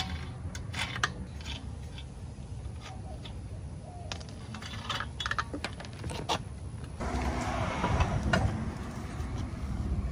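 Lug nuts being spun off a car's wheel studs by hand, with scattered metallic clicks and clinks as they are handled. About seven seconds in comes a louder scraping rub of a couple of seconds as the wheel is pulled off the hub.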